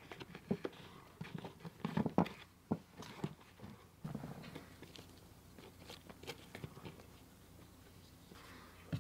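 Faint handling noise from hands working at a small hole in a wall: scattered light clicks, taps and rustles.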